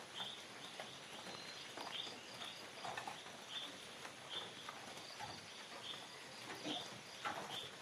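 Tropical forest ambience: a short high chirp repeats about every two-thirds of a second over a faint steady high insect hum, with scattered soft clicks and rustles.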